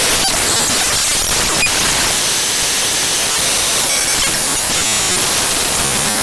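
Raw data of a Paper Mario game file played back as audio by the Binary Waterfall web player: loud, steady, harsh static with faint glitchy clicks.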